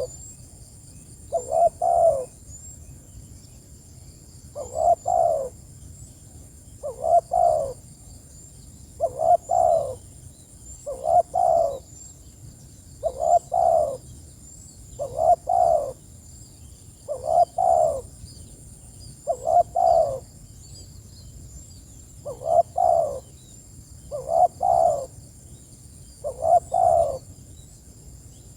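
Spotted dove cooing: a short phrase of two or three coos repeated about every two seconds, a calling song used to lure other doves. Faint, high, rapid chirping runs underneath.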